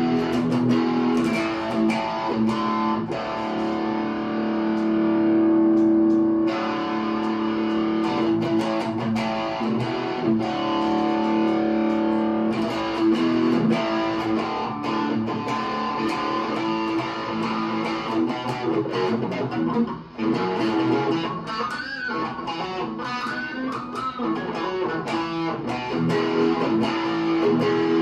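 Stratocaster-style electric guitar with a basswood body and maple neck, played through an amplifier on its neck pickup: strummed chords and picked single-note lines that ring on, with one brief break about two-thirds of the way through.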